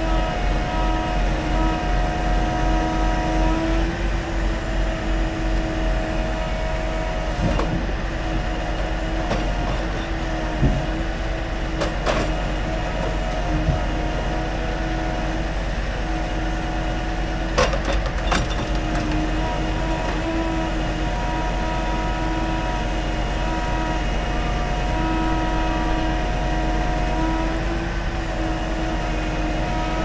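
Timber truck engine running the hydraulic pump of its truck-mounted timber crane during log unloading: a steady mechanical hum with a few held whining tones, which shift slightly as the crane moves. A few sharp knocks come partway through, twice close together.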